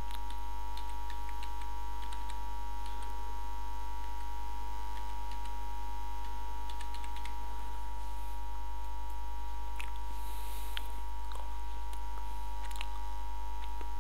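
Steady electrical mains hum, with faint scattered clicks of a computer keyboard being typed on.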